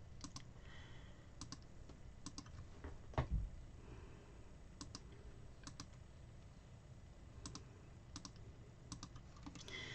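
Faint, irregular clicks of a computer keyboard being tapped while emails are searched, with one low thump about three seconds in.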